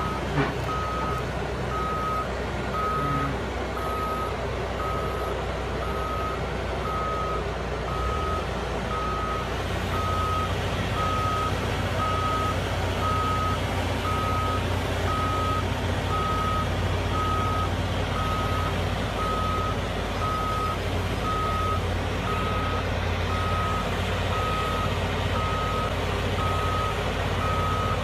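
Heavy vehicle's reversing alarm beeping evenly on one high tone, about one and a half beeps a second, over the steady rumble of its engine. The rumble grows fuller about ten seconds in.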